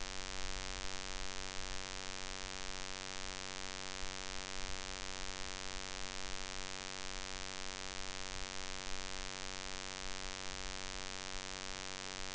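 Steady electrical mains hum with a buzzy edge and a constant background hiss, unchanging throughout.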